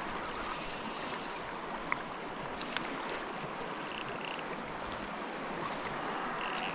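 Fast river current rushing steadily, a constant wash of moving water, with two brief clicks about two and three seconds in.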